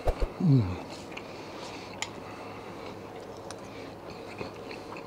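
A man's short, falling 'mmm' of enjoyment while eating, about half a second in, after a couple of small clicks. Then a steady quiet background with a few faint ticks, likely the fork on the plate.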